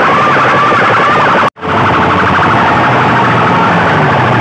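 Banks of horn loudspeakers blaring a very loud, distorted siren-like wail that rises and falls in quick arcs. About a second and a half in, the sound cuts out for an instant. It comes back as a harsher, steady tone over a low hum.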